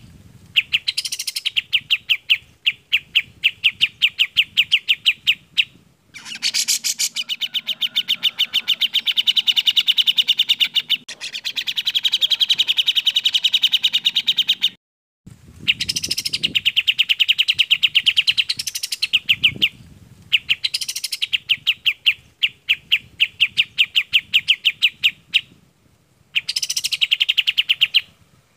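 Recorded songs of kapas tembak and cucak jenggot songbirds, a clear voice used as a model song for training other birds. Long runs of rapid, evenly repeated high notes with occasional sweeping calls, broken by a few short pauses.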